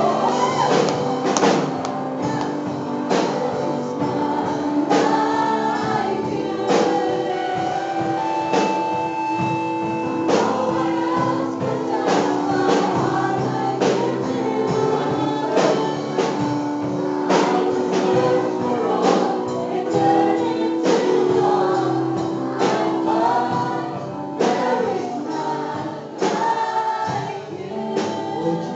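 Worship song sung by a group of voices over instrumental accompaniment, with a steady percussive beat.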